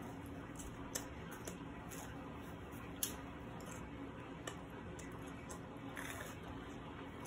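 Close-up mouth sounds of someone chewing crispy flatbread: a few sharp clicks and smacks over a low steady hum, with a brief soft rustle of a paper napkin near the end.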